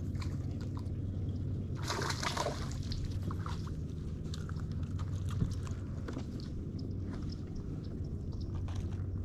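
Steady low hum of a bass boat's bow-mounted trolling motor, with water lapping at the hull and scattered light clicks. A brief rush of water-like noise comes about two seconds in.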